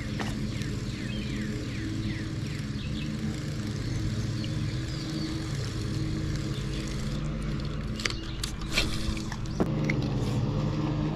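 A steady engine drone, with birds chirping in the first few seconds and a few sharp clicks near the end.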